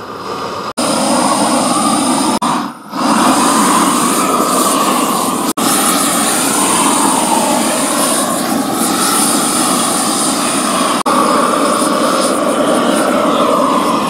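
Greenwood propane weed torch burning at full flame, a loud steady rushing roar of the gas jet, with a few brief drop-outs.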